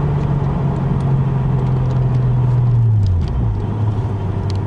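Toyota 1JZ-GTE twin-turbo straight-six, fitted with an open pod filter, running while the car is driven, heard from inside the cabin over road rumble. Its note holds steady, then drops about three seconds in as the revs fall.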